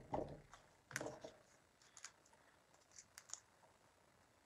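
Faint crackling and rustling of a paper-backed sheet of foam adhesive dimensionals being handled as pads are peeled off, several short crackles about a second apart.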